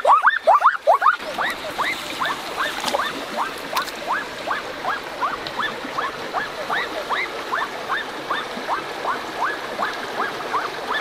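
A rapid series of short rising chirping calls, about three a second, from an animal, over the steady rush of stream water that comes in about a second in.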